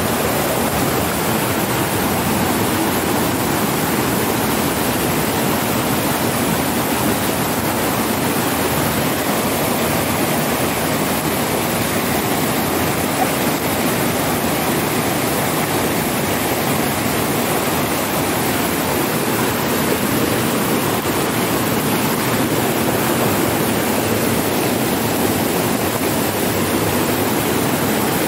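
Steady, loud rushing of a rocky mountain stream.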